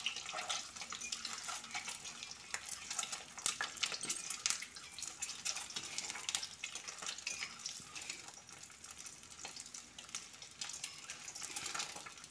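Whole peeled boiled eggs sizzling in shallow oil in a metal kadhai while a metal spatula scrapes and taps the pan, turning them. This is the stage where the eggs are fried until golden.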